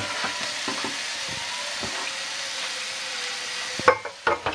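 Tap water pouring into a hot frying pan, a steady hiss of running water and sizzling steam. A few sharp knocks come near the end.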